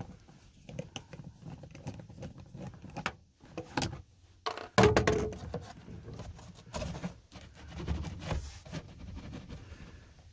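Hands handling screws and interior trim parts in a car: scattered light clicks and knocks, with a louder thump and rustle about five seconds in.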